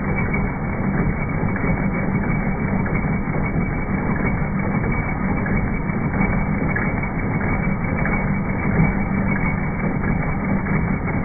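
BESTSEW B-3620 15-needle embroidery machine stitching, slowed down with the slow-motion footage so the needle strokes blur into a steady low mechanical rumble.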